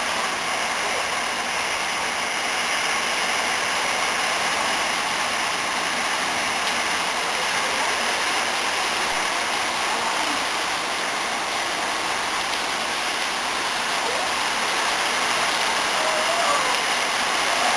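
Heavy storm downpour: a steady rush of rain and pouring, running water.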